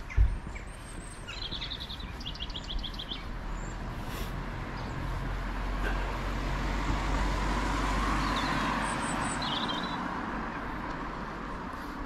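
Roadside ambience: small birds chirping in quick repeated notes, while a vehicle passes on the road, its noise building to a peak about eight seconds in and then fading. A low thump right at the start is the loudest moment.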